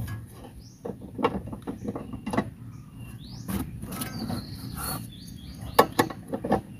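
Irregular metallic clicks and clinks of a hand wrench working the nut on a suspension-arm bolt.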